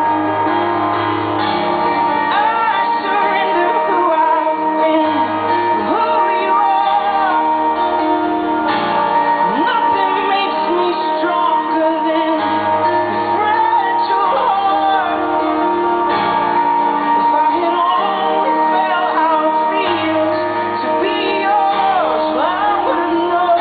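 A slow ballad played live: a man sings and accompanies himself on keyboard, amplified through the stage's PA speakers. The sustained chords shift about every two seconds under a gliding vocal line.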